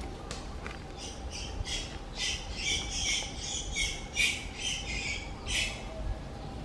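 Macaque giving a rapid string of short, high-pitched squeals and squawks, running for several seconds before stopping near the end.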